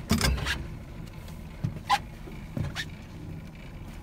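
A steady low motor hum from the boat, with a few sharp knocks and clatters over it. The loudest cluster comes in the first half-second, then single knocks near the middle and again a little later.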